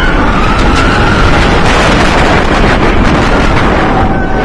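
Wind rushing loudly over the microphone of a front-row rider on a steel launched roller coaster running at full speed, with the low rumble of the train on its track underneath.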